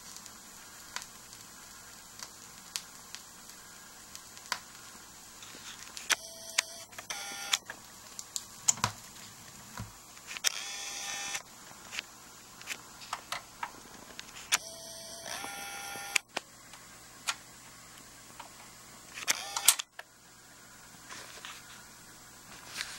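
Stylus of a BIC 960 belt-drive turntable clicking faintly about every two seconds as the record turns, with the tonearm far in near the label. Several short whirring bursts from the camera's zoom motor come between the clicks.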